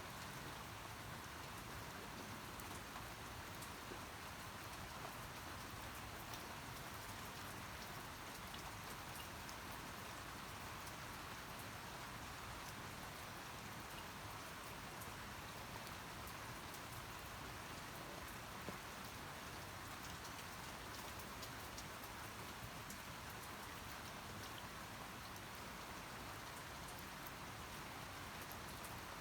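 Steady rain falling, a soft even hiss with scattered faint drop ticks.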